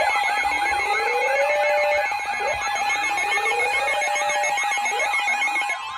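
Loud layered electronic alarm tones: a steady tone under fast warbling siren sweeps, with a slow rising wail repeating about every two and a half seconds. Part of the mix cuts out near the end.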